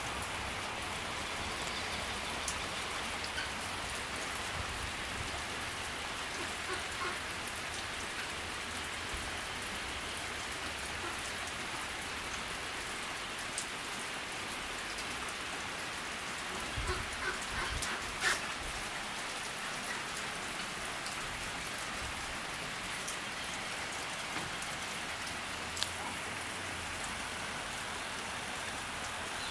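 Steady rain falling, an even hiss, with a few louder close drips a little past the middle and another near the end.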